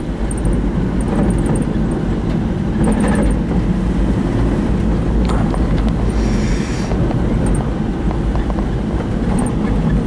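A car driving slowly, heard from inside the cabin: a steady low rumble of engine and tyre noise.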